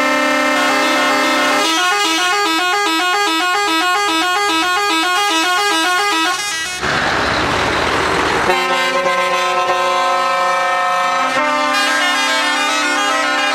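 Musical multi-tone air horns on a show truck playing a tune, the notes stepping quickly up and down. A rushing hiss briefly covers the horns about seven seconds in.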